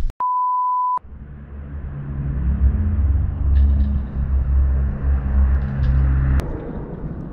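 A steady electronic beep lasting under a second near the start, then a low vehicle engine rumble that cuts off suddenly about six seconds in.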